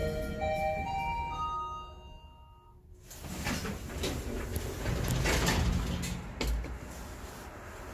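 Hyundai 60VF elevator's arrival chime: a short electronic melody of held notes stepping upward in pitch, fading out after about two and a half seconds. About three seconds in, the doors slide open with a rumbling clatter.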